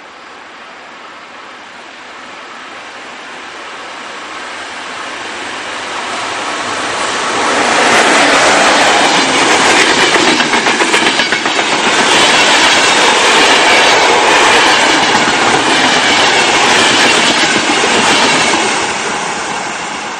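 Passenger train hauled by an electric locomotive approaching and passing at speed: the rumble and clatter of wheels over the rail joints builds steadily, is loudest for about ten seconds in the middle, then fades near the end.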